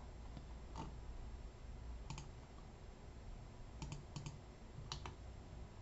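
Faint computer mouse clicks, several in quick pairs like double-clicks, as folders are opened in a file-save dialog, over a low steady room hum.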